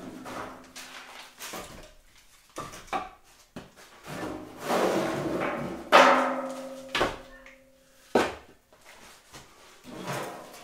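Split firewood knocking and clattering as logs are picked out of a metal wheelbarrow and stacked, in a run of separate knocks with the loudest about six seconds in.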